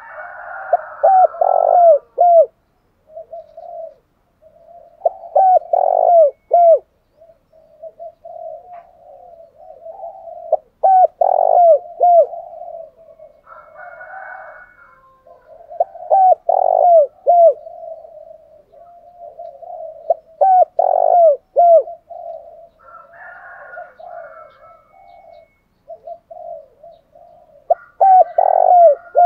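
Spotted doves cooing: a low, running bubbling coo, broken about every five seconds by a bout of three or four loud coos that each fall in pitch. This is the courtship cooing ('thúc gù') and calling ('gáy gọi') of males and females, played to stir caged doves to call.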